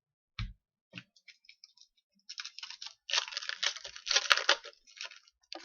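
Foil wrapper of a hockey card pack being torn open and crinkled, with cards clicking and sliding against each other as they are handled. A dull thump comes about half a second in.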